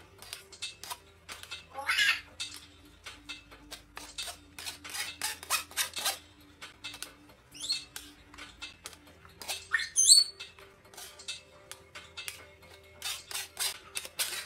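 A metal spoon scraping and tapping against a stainless-steel mesh strainer, pressing blended green-juice pulp so the juice drains into a steel bowl below, in a run of repeated scrapes and clicks. Three short high-pitched calls that glide in pitch stand out, about two, seven and a half, and ten seconds in.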